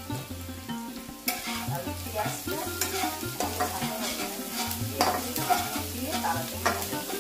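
Sliced onions frying in oil in a nonstick kadai, stirred and scraped with a flat spatula. The scraping strokes begin about a second in and repeat irregularly over the sizzle.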